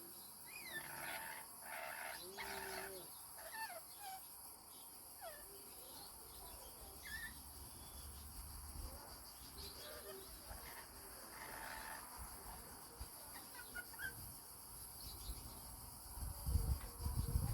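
Small parrots (lorikeets or lovebirds) giving short, scattered chirps and squeaks that glide up and down in pitch, over a steady high hiss. Near the end a loud, low rumbling disturbance comes in.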